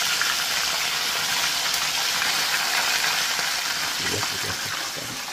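Whole croakers deep-frying in hot oil in a skillet: a steady, even sizzle, easing a little near the end.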